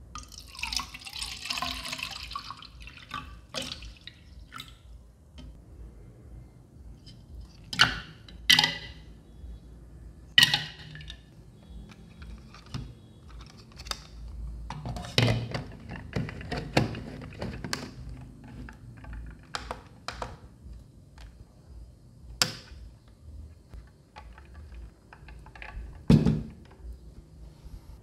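Water poured briefly into the mini spray fan's small water tank, then a string of separate clicks and knocks as the fan is handled.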